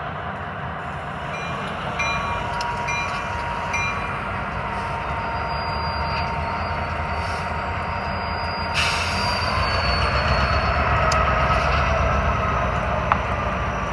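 Union Pacific diesel locomotive running, a steady low rumble with thin high steady tones over it. About nine seconds in there is a sudden short rush of noise, and the engine then grows louder as the locomotive begins backing up.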